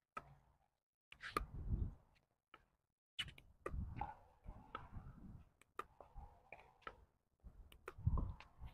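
Pickleball paddles tapping a plastic ball back and forth in a soft dinking rally, a series of sharp pops every second or so with the ball bouncing on the hard court between hits. Low thuds are mixed in, the loudest near the end.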